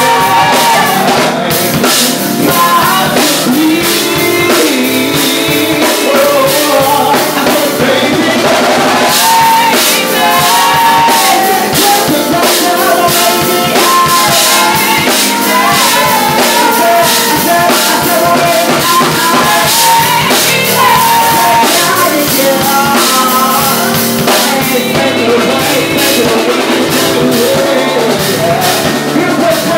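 A male soul singer singing a melody over a live band with drum kit, guitar and keyboard.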